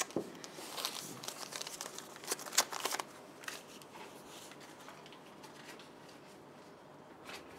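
Paper crinkling with light clicks as a paper ticket is handled at a counter, busy for about three seconds and then fading to faint room tone.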